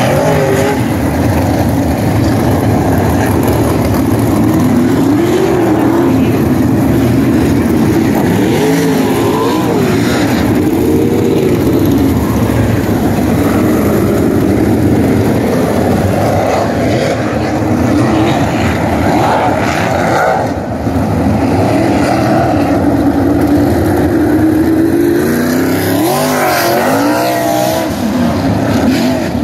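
Winged sprint car engines racing, loud and continuous, several cars at once. Their pitch rises and falls again and again as the cars pass and accelerate out of the turns.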